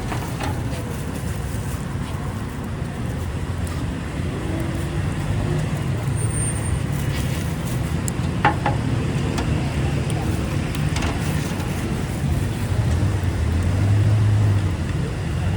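Steady road traffic noise, a continuous low rumble of passing vehicles, with a short sharp click about eight seconds in.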